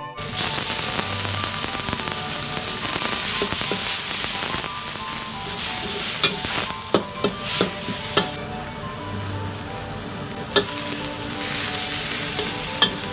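Coconut shreds and sambal sizzling in oil in a wok, stirred with a metal spatula that clicks and scrapes against the pan several times, mostly around the middle.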